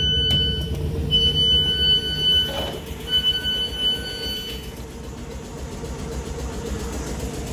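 Door alert on a South Western Railway Class 455 electric multiple unit sounding three long high beeps as the door-open button is pressed, with a brief swish of the door mechanism between the second and third beep. Under it the stationary train's steady hum and low rumble carry on after the beeps stop.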